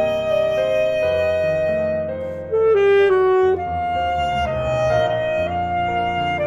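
Alto saxophone playing a slow melody of long held notes over piano chords. It swells louder for about a second near the middle.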